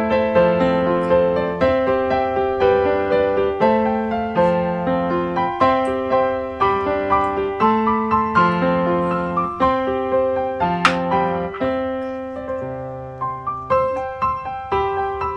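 Background piano music: a gentle run of notes and chords, one after another at a steady pace. A single sharp click sounds about eleven seconds in.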